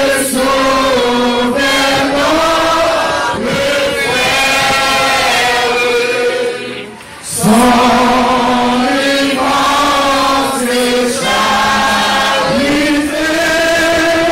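A group of voices singing together in long held notes, phrase after phrase, with a short break about seven seconds in.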